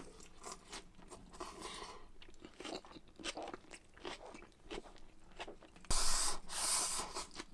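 A person chewing a crunchy mouthful of tonteki with crisp stir-fried onions, shredded cabbage and garlic chips, a run of short crunches close to the microphone, louder for about a second near the end.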